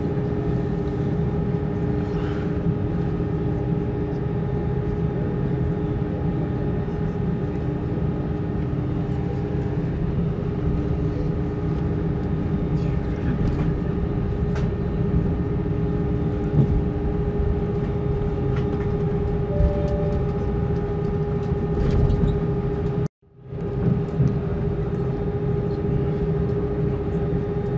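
Airbus A320 cabin noise while taxiing: a steady rumble with a steady hum from the engines at idle and the air system. Near the end the sound cuts out completely for a moment, then comes back the same.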